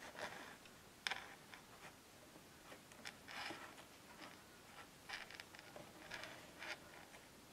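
Faint handling noises: scattered small clicks and short scraping or brushing sounds, the loudest click about a second in.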